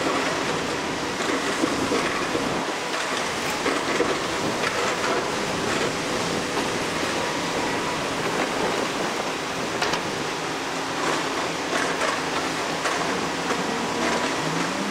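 Daewoo Solar 255LC-V crawler excavator's diesel engine working under load as it digs soil and swings its bucket, with occasional metallic clanks. The engine revs up briefly near the end.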